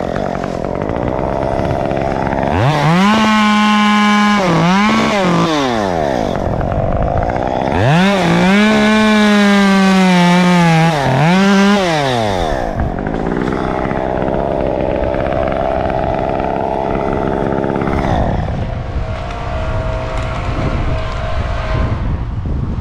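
STIHL two-stroke chainsaw cutting into a palm tree, revved to full throttle twice: about 2.5 s in and again about 8 s in, each held for several seconds with a brief dip, then dropping back. From about 13 s in it runs on at a lower, rougher idle.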